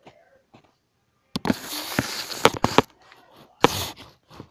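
Handling noise on a phone's microphone: about a second and a half of scraping, rustling hiss with sharp clicks, then a single short knock about a second later.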